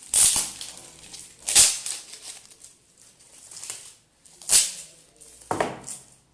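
Crinkly gift packaging being handled and opened by hand, rustling and crackling in a few short bursts.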